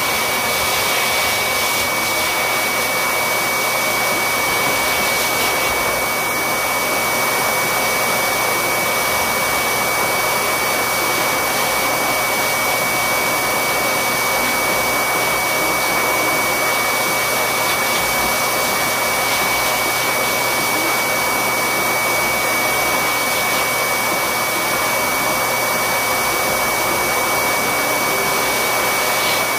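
Corded electric pet clippers running steadily as they trim a Yorkshire terrier's coat, an unbroken whirring noise with a constant high whine.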